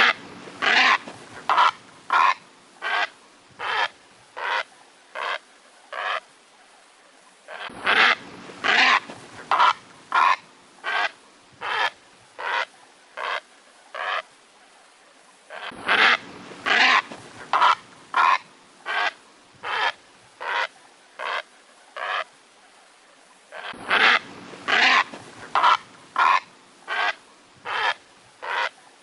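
Heron calling: a series of about eight short, loud calls that start close together, then slow and fade. The same series repeats about every eight seconds, four times in all.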